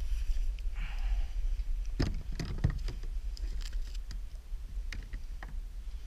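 Wind rumbling on the microphone, with a scatter of sharp clicks and knocks from about two seconds in as the fishing rod and reel are handled in the plastic kayak. A brief hiss comes about a second in.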